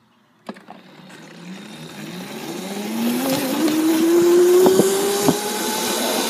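Razor electric dirt bike pulling away: a click about half a second in, then the electric motor's whine rising steadily in pitch as the bike speeds up. A rush of wind and road noise grows louder underneath it.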